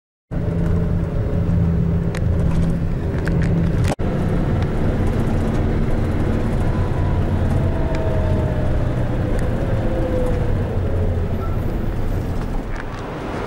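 Steady low engine and road noise inside a moving vehicle, cut sharply about four seconds in.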